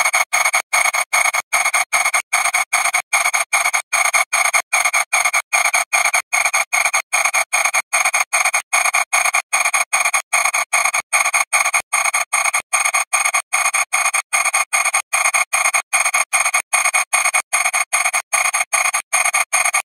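Harsh, noisy buzz chopped by brief dropouts about three times a second, steady throughout: audio worn down by thousands of repeated video exports until only re-encoding artefacts are left.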